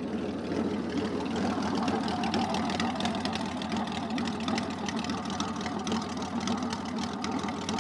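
Flat-six cruiser motorcycle engine running steadily at idle.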